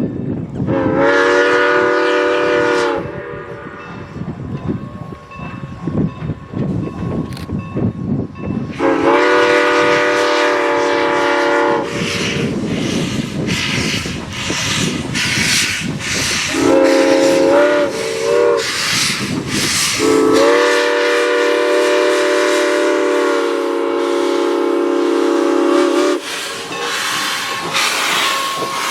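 Steam locomotive's chime whistle sounding a grade-crossing signal of long, long, short, long blasts, each a chord of several tones. Between the blasts the locomotive's exhaust chuffs and steam hisses.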